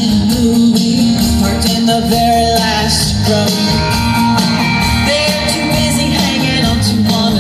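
Live country band playing a song with singing, loud and steady, as heard from the audience at an outdoor concert.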